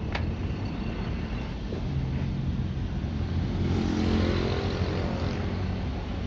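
Steady city street traffic rumble, with a vehicle passing close by about four seconds in, its engine hum and tyre noise swelling and then fading. A single sharp click right at the start.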